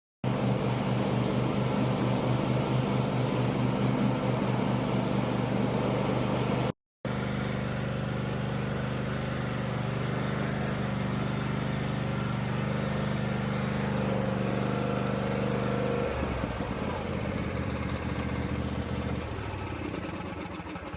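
Lawn mower's small engine running steadily on a test run after debris was cleaned out of its fuel tank and a screen filter fitted on the clogged fuel pickup, the fault that had made it cut out at random. The note cuts out briefly twice, drops to a lower, different note about three-quarters through, and fades near the end.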